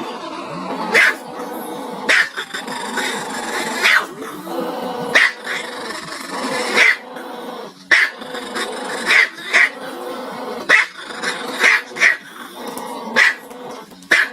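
A dog barking in short, sharp barks, about a dozen of them at roughly one a second, over a steady background sound.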